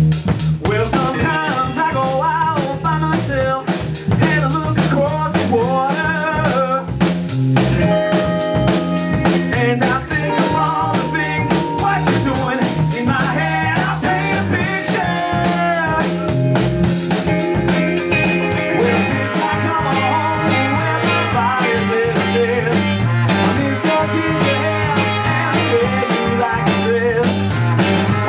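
Ska-punk band playing a song live: drum kit, bass and guitar, with a melody line over them.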